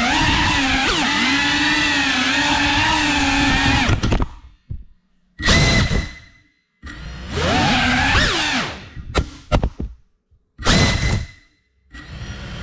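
3.5-inch cinewhoop FPV drone's motors and propellers whining steadily. After about four seconds the throttle cuts, and the motors come back only in short bursts that rise and fall in pitch, with near-silent gaps between them, until they spin up steadily again at the end.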